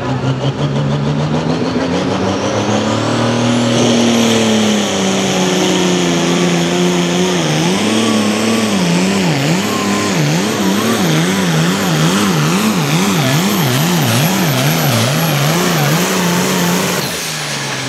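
Light pro stock pulling tractor's turbocharged 466-cubic-inch diesel under full load pulling the sled. Its revs climb at the launch along with a high turbo whistle, then surge up and down about twice a second as it works down the track, and cut off sharply near the end as the pull ends.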